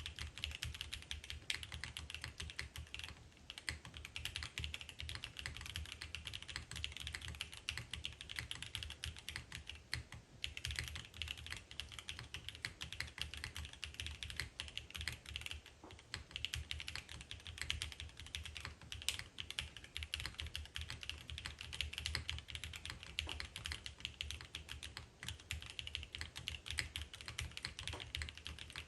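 Fast, continuous typing on a gasket-mounted F1-8X v2 mechanical keyboard with an aluminium plate, lubed and filmed Prevail Epsilon switches and lubed M1 stabilizers under ABS doubleshot keycaps: a dense stream of key clicks and bottom-outs, with brief pauses about three and ten seconds in.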